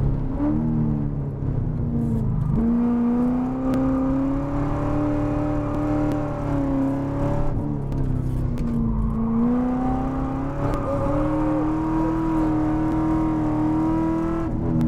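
Corvette C6 Z06's 7.0-litre V8 pulling hard on track, heard on board. The engine note falls about a sixth of the way in and again past halfway, climbing back each time as the car slows for corners and accelerates out.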